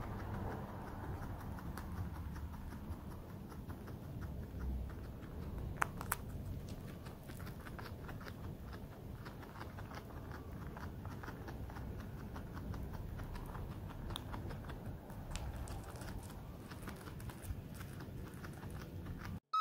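Guinea pig chewing a dry timothy hay snack close to the microphone: a quick, steady run of small crisp crunches, with one sharper crack about six seconds in.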